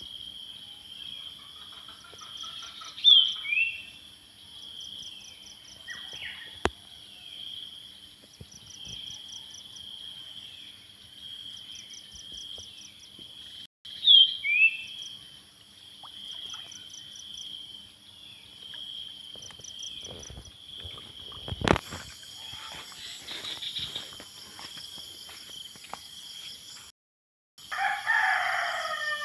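Steady chorus of insects: a high continuous buzz with a short pulsing trill repeating every couple of seconds. Short falling bird chirps sound throughout, and a rooster crows near the end.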